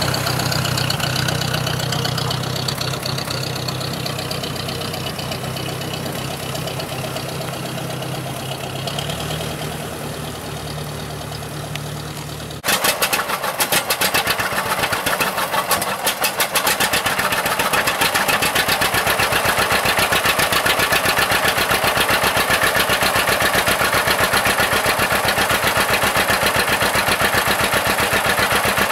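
Ford tractor engine running steadily and fading as the tractor pulls away. About halfway through it gives way to the louder, even popping beat of a John Deere 620's two-cylinder engine running at low speed.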